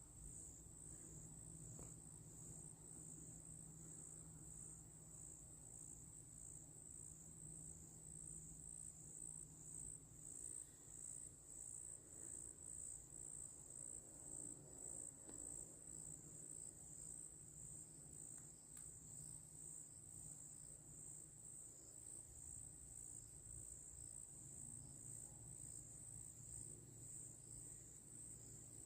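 Faint chorus of crickets chirping steadily in a high, evenly pulsing band.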